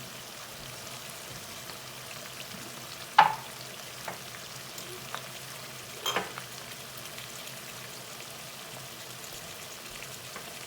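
Lamb pieces and masala sizzling steadily as they fry in a pan, with sharp knocks about three seconds in (the loudest) and again about six seconds in, and a lighter one between them.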